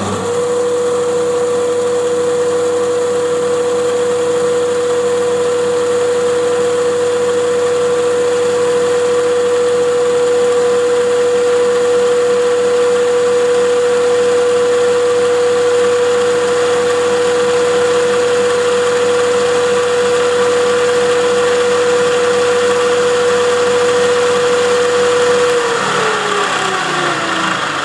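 Milling machine spindle running with a steady whine while a small end mill cuts screwdriver slots in brass rings held in a vise. About two seconds before the end the whine slides down in pitch as the spindle winds down.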